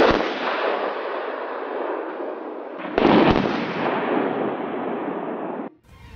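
Two bomb detonations about three seconds apart, each a sharp blast that trails into a long rumble; the sound cuts off suddenly shortly before the end.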